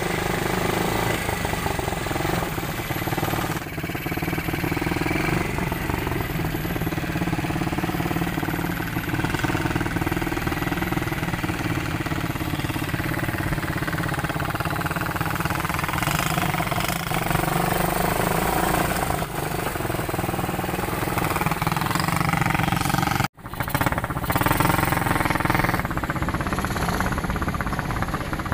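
ATV engine running and revving, its pitch rising and falling in swells, with a brief dropout about three-quarters of the way through.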